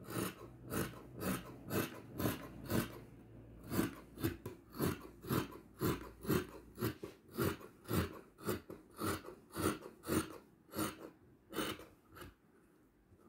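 Dressmaking shears cutting through stretch velvet fabric: a steady run of snips, about two a second, that stops shortly before the end.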